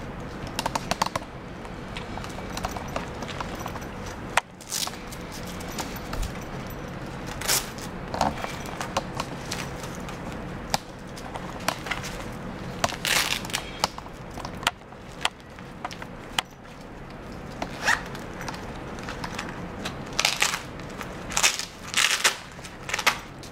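A nylon rifle-stock cheek pad being handled: fabric rustling and scraping, with small clicks. There are several short rasps as its pocket closure is worked open, the loudest cluster near the end.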